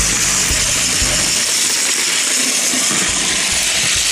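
Plarail battery-powered toy train running: its small electric motor and plastic gears give a steady high whirring, with light clicking underneath, on a test run after its axle gear and motor pinion were replaced.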